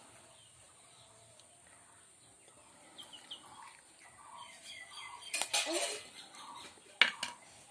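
Birds chirping with short calls from about three seconds in, a louder call falling in pitch a little after halfway, and one sharp click near the end.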